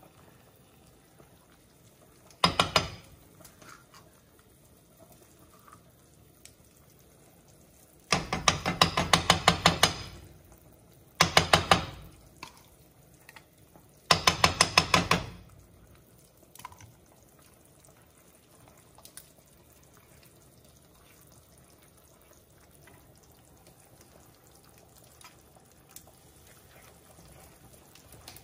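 A spoon knocking and scraping against a bowl in quick rhythmic strokes while peanut butter is mixed into a sauce. There is one short burst, then three longer bursts of one to two seconds each close together in the middle.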